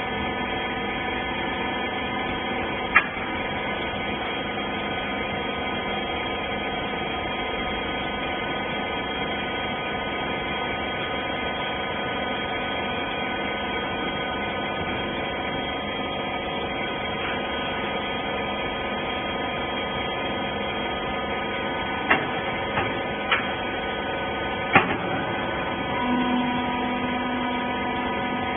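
Hydraulic rag baler's power unit running with a steady hum. A sharp knock comes about three seconds in, and a few more near the end.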